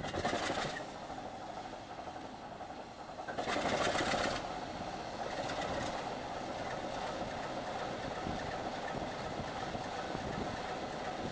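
Class 27 diesel locomotive's Sulzer 6LDA28 six-cylinder engine running just after being fired up following a generator overhaul. Two short loud rushes of noise, one right at the start and one about three and a half seconds in, then it settles into a steady idle.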